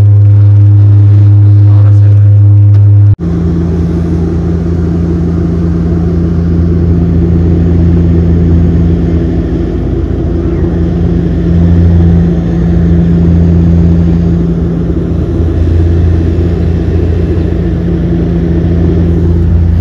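Loud, steady in-flight cabin drone of a small passenger plane's engines: a deep hum with a few steady tones over it. About three seconds in it breaks off for an instant and comes back slightly rougher.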